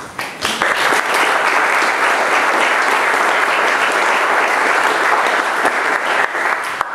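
Audience applauding. The clapping swells up in the first second and stops fairly abruptly near the end.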